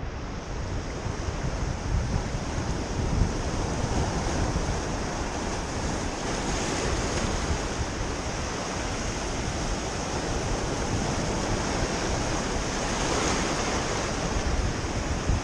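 Surf washing and breaking over a rocky shoreline in a steady, unbroken rush, with wind rumbling on the microphone.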